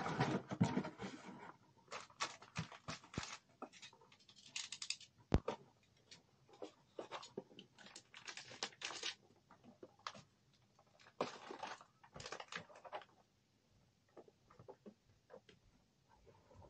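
Irregular rustling, crinkling and light knocks of packaging and small items being handled as a cardboard box of pharmacy products is unpacked, with one sharper knock about five seconds in.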